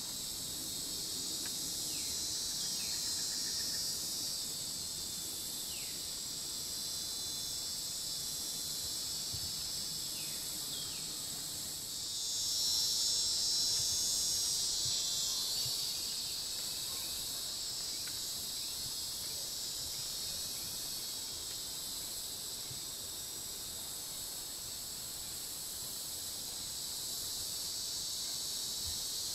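Insect chorus in swamp woodland: a steady, high-pitched buzzing drone that swells louder for a few seconds about halfway through.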